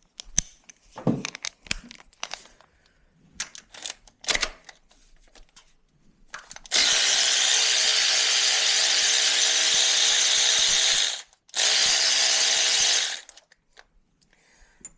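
A handheld power driver runs steadily for about four and a half seconds, stops briefly, then runs again for about a second and a half, likely spinning out fasteners on the engine ahead of the spark plugs. Before it, scattered clinks and clicks of hand tools and sockets.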